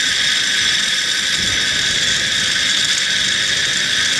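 Zip-line trolley pulleys running fast along the cable, a steady high-pitched whirring hiss.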